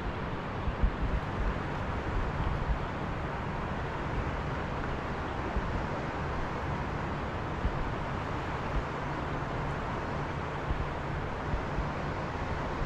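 Wind buffeting the microphone in uneven low gusts over a steady rushing hiss.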